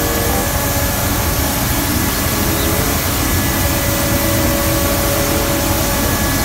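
Truck-mounted street sweeper running as it drives with its brushes down: a loud, steady rushing noise from its engine and suction fan.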